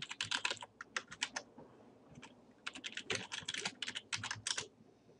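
Typing on a computer keyboard: two quick runs of keystrokes with a pause of about a second between them.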